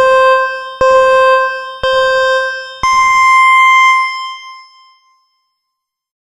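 Four electronic chime notes about a second apart: three on the same pitch, then a fourth an octave higher that rings on and fades away.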